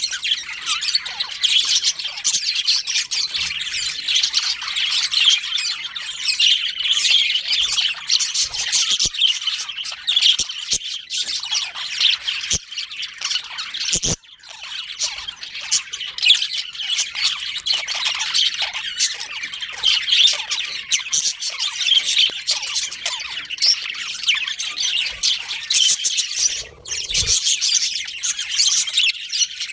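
A flock of budgerigars chattering and chirping nonstop, many birds calling over one another, with a brief lull about halfway through.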